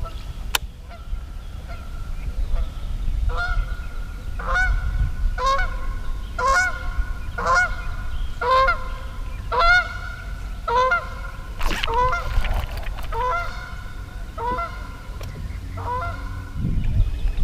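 A goose honking over and over, about one honk a second, each honk a short nasal call with a slight bend in pitch. The first few honks are faint; from about three seconds in they are louder, and they stop shortly before the end.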